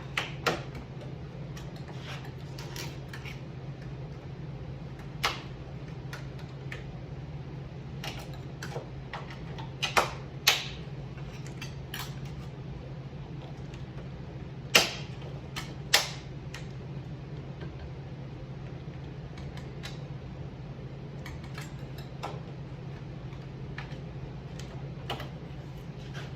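Irregular sharp clicks and knocks of hand tools and metal parts being worked loose on a car body, the loudest clustered around the middle, over a steady low hum.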